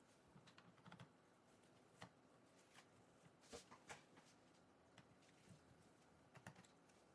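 Faint, scattered clicks and light taps of a JIS No. 1 screwdriver and small screws against a laptop's plastic bottom cover, as the cover screws are taken out one by one.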